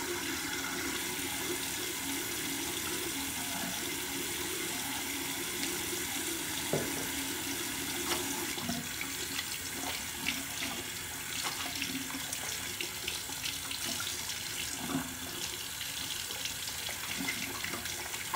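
Water running steadily from a tap into a sink, with a few light knocks and clicks.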